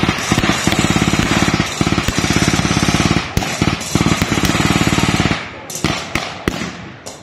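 Machine gun firing blanks in long, very rapid bursts with short breaks, followed near the end by a few separate single shots.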